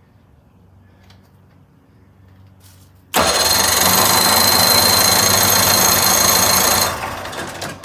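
Electric starter cranking the 1980 Chrysler 45 hp two-stroke outboard for about four seconds, starting suddenly about three seconds in and then winding down, without the engine firing: the crank-no-start fault, suspected to come from stale or ethanol fuel.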